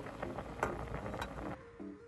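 Background music of short plucked-sounding notes, under a noisy ambient layer with a couple of sharp clicks that cuts off abruptly about three-quarters of the way through, leaving the music alone.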